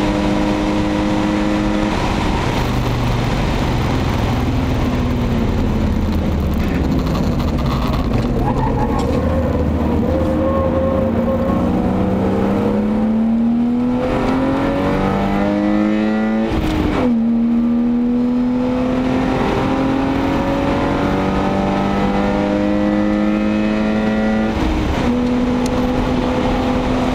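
BMW 525i E34's 2.5-litre 24-valve inline-six heard from inside the cabin, with tyre and road noise under it. Its pitch falls as the car slows, then climbs steadily under hard acceleration, dropping sharply at two upshifts, the second near the end.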